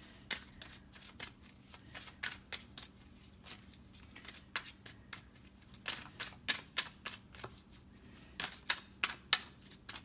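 A deck of tarot cards being shuffled by hand: many short, crisp clicks and snaps in irregular clusters.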